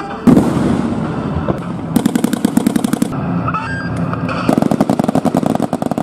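A single loud blast about a quarter second in, then two long bursts of rapid automatic gunfire at about ten rounds a second, one starting about two seconds in and another from about four and a half seconds on.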